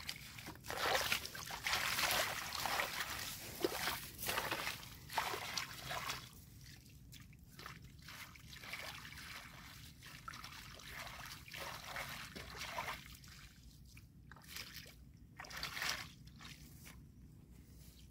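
Shallow water sloshing and dripping in irregular splashes, heaviest over the first six seconds, then in shorter spurts.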